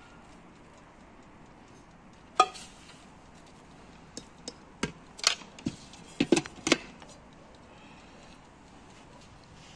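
Handling a tea canister and spooning loose tea into a teapot with a metal strainer: one sharp click about two and a half seconds in, then a run of light clicks and clinks of the metal spoon against the canister and teapot between about four and seven seconds.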